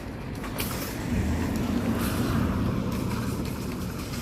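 A motor vehicle passing close by, a low engine and tyre rumble that swells and then fades.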